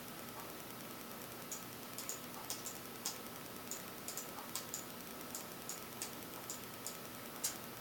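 Computer clicking while a map is navigated: irregular sharp clicks, about two a second from a second or so in, the loudest near the end. A faint steady high whine runs underneath.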